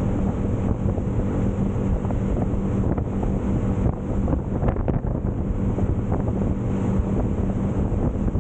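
A 25-foot Clearwater 2508 boat running underway: a steady engine drone under heavy wind buffeting on the microphone, with water rushing past the hull.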